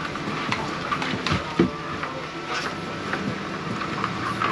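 Steady low hum of an idling boat motor, with a few light knocks.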